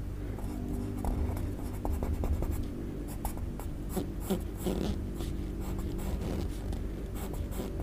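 Pencil scratching on paper in many short, quick strokes as a sketch is drawn, over a steady low hum.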